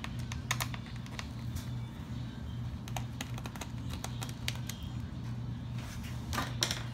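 Irregular small clicks and taps of a screwdriver and fingers working the little keyboard retaining screws in the plastic underside of an HP Pavilion DV7 laptop, over a steady low hum.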